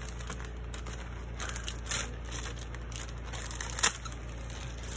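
Plastic-sleeved scrapbook sticker packs and paper sheets being shuffled and handled, crinkling and rustling in uneven bursts, with one sharp tap a little before the end.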